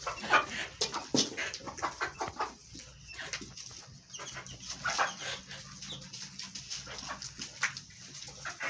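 Poultry calling, with many short, overlapping calls and clucks.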